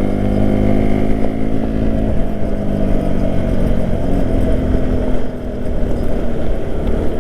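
Bajaj Pulsar NS200 single-cylinder engine running while riding, its note shifting a couple of times, over a low rumble.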